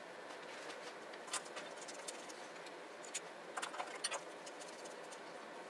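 A few faint metallic clicks and light scrapes as hands handle the steel secondary air tubes and baffle inside a woodstove firebox, over a low steady hiss. The clicks come singly and then in a short cluster past the middle.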